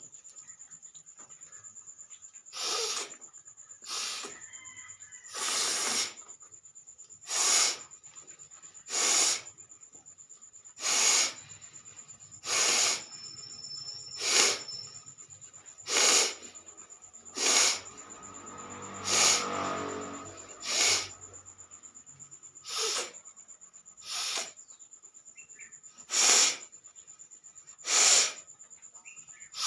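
A woman sneezing over and over, one short sneeze about every one and a half to two seconds. The one a little past the middle is longer and voiced.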